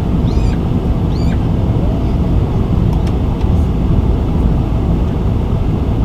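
Steady, loud cabin roar of a Boeing 747-400 in flight on approach: airflow and its four Pratt & Whitney PW4056 engines. Two brief high squeaks come about half a second and a second in.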